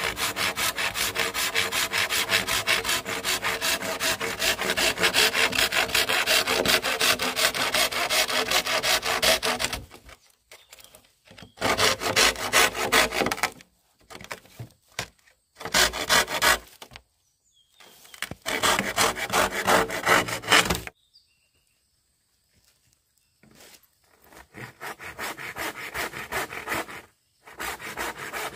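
Hand saw cutting bamboo with quick, even back-and-forth strokes. The sawing runs without a break for about ten seconds, then goes on in shorter bursts with pauses between.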